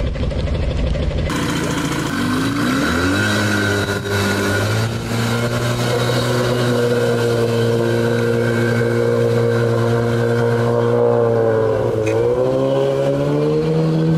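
Evinrude MFE 55 two-stroke outboard with a jet pump driving an inflatable boat: a low rumble, then the engine revs up a couple of seconds in and holds a steady high note, dips briefly near the end and picks back up.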